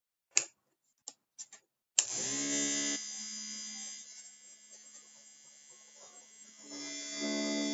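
A few clicks, then an electric hair clipper switches on about two seconds in and buzzes steadily. The buzz drops in level a second later and comes back up near the end.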